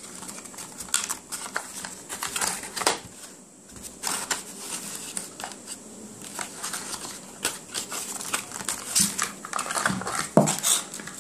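Cardboard packaging and the plastic film around a new router rustling and crinkling as they are handled, with scattered clicks and taps; a louder knock about ten seconds in as the router is picked up and turned over.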